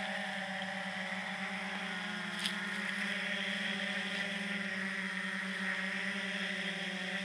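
Autel X-Star Premium quadcopter hovering close to the ground, its four propellers giving a steady buzzing hum whose pitch wavers slightly. A single short click about two and a half seconds in.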